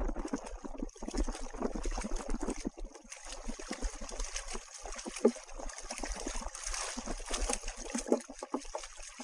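Paddle-fitted bicycle wheels of a pedal-powered amphibious recumbent churning through lake water, with a continuous patter of splashing and water pouring off the blades.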